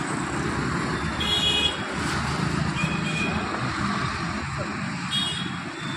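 Road traffic running steadily, with short vehicle horn toots about a second in, again around three seconds, and near the end.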